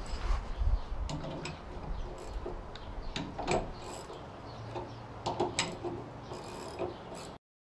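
Ratchet wrench clicking in short, irregular strokes as it tightens the nut on a leaf spring shackle bolt, with scattered metal clicks and taps. The sound cuts off abruptly near the end.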